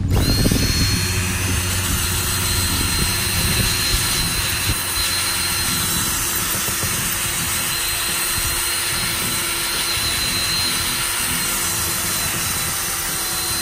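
Cordless drill spinning a twisted-knot wire cup brush against a cast iron skillet, scrubbing off a layer of rust: a steady whine over a harsh scratching hiss.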